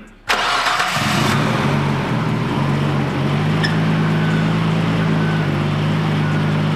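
A Nissan Skyline R34's turbocharged RB25 NEO straight-six starts up a fraction of a second in, catching straight away, on its first start with new Audi R8 ignition coil packs. It then runs at a steady fast idle, with its note stepping down slightly about halfway through.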